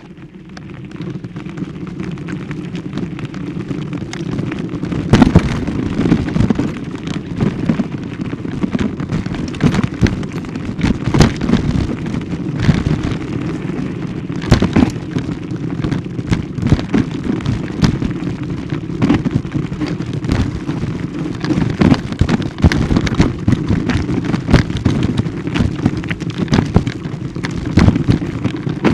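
Steady rumble and rattle of travelling fast over a rough gravel forest track, growing louder over the first few seconds, with frequent irregular sharp knocks and jolts.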